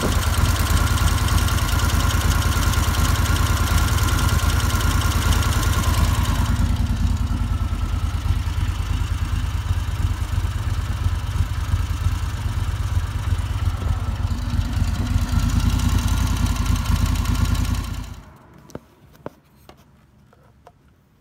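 Moto Guzzi Quota 1000's air-cooled 90-degree V-twin running at a fast idle, the fault being that it will not idle down even with the idle screw all the way out. The note drops about six seconds in, picks up again near fifteen seconds, and the engine cuts off suddenly near the end, followed by a few faint ticks.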